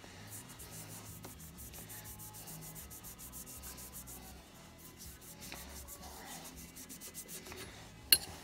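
Quick back-and-forth hand rubbing of a small browned steel rifle part with a pad, carding off the rust between coats of browning solution. A single sharp click comes near the end.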